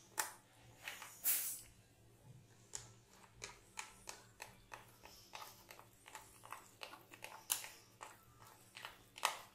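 Metal spoon stirring gram flour and water into a thick batter in a glass bowl: irregular wet squishing with short scrapes and taps, several a second.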